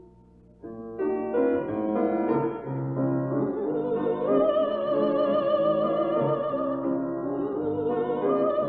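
Classical art song: after a brief hush, piano chords enter, and about two seconds in a woman's operatic voice joins, singing long held notes with a wide vibrato over the piano.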